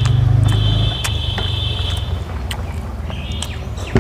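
Fingers mixing rice on a steel plate, with light clicks against the metal, over a steady low rumble and birds chirping. A high, steady trill runs through about the first two seconds.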